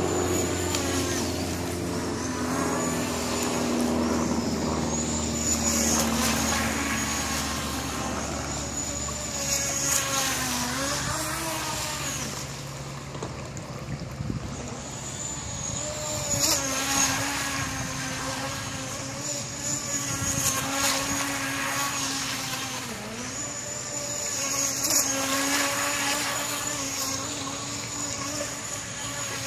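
Atomik Barbwire 17-inch brushless RC boat running fast on the water: a high-pitched electric motor whine that dips and climbs again and again as the throttle changes and the boat turns.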